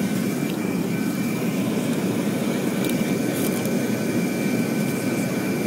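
Boeing 737 jet engines heard from inside the cabin, running steadily at low thrust while the aircraft taxis: an even rumbling rush with a thin, steady high-pitched whine above it.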